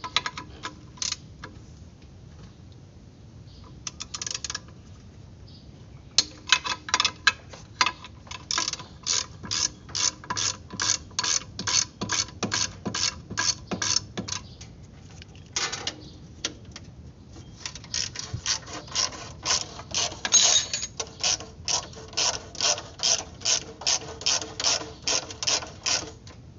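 Hand ratchet wrench clicking in steady back-strokes, about two a second, as the nuts holding the turbocharger to the exhaust manifold are worked loose. The clicks come in two long runs, the first starting about six seconds in and the second about eighteen seconds in, with a few short bursts before them.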